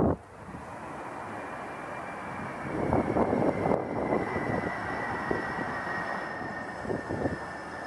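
Jet engines of a Boeing 747-400 rolling out after landing: a steady rush that grows louder about three seconds in, with a thin high whine slowly falling in pitch.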